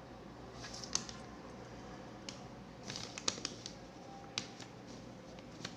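Scattered small clicks and taps, a few in quick clusters, from handling a twisted-pair UTP cable and a plastic RJ-45 connector while the wires are fed in.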